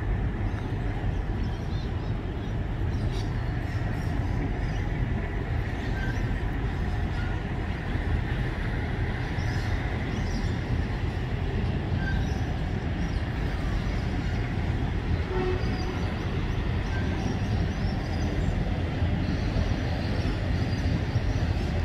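Freight train's container wagons passing steadily over a steel truss rail bridge, a continuous low noise of wheels running on the rails.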